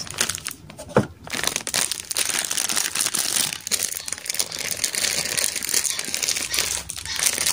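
Plastic packaging of a hotcake mix crinkling as it is handled, a continuous crackling, with one sharp knock about a second in.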